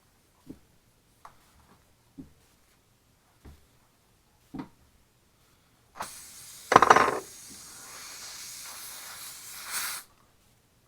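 A few light knocks of the hand tools, then air hissing out of a car tire's puncture for about four seconds once the rasping tool is pulled out, with a louder rush near its start. The hiss cuts off suddenly as the plug is pushed in to seal the hole.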